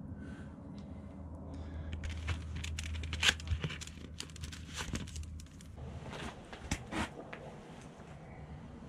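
Crinkling, rustling handling noise with many sharp irregular clicks, busiest a little past halfway, over a low steady rumble that drops away about two-thirds of the way through.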